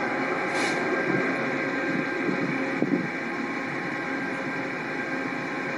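Amtrak passenger train standing at the platform with its engine running, a steady mechanical noise with a few small knocks about three seconds in.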